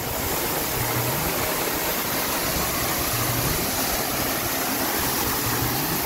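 Waterfall pouring down a rock face, a steady full rush of falling and splashing water.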